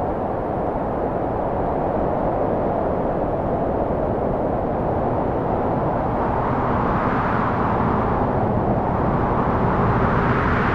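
Video installation's soundtrack: a steady rushing roar with no speech, swelling brighter about seven seconds in and again near the end.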